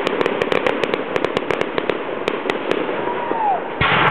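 Aerial fireworks: rapid crackling pops from bursting shells, then one loud shell burst near the end.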